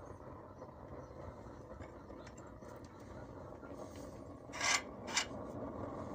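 Steady running noise of a gravity-fed pellet burner, its fan and flame, with two short rubbing scrapes about four and a half and five seconds in.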